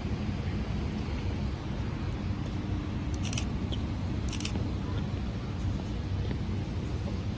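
Steady low background rumble, with two short high hissing scrapes about a second apart near the middle.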